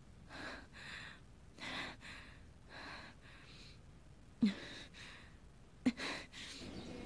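A woman breathing audibly and unevenly, a run of short breaths with two sharper catches of breath about four and a half and six seconds in.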